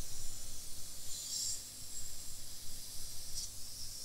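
Steady hiss of soldering rework on a motherboard chip's pins, with short, louder sizzling hisses about a second in and again near the end.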